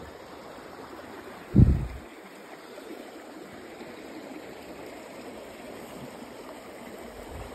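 Creek water running steadily over a shallow bed, with one short, low thump about a second and a half in.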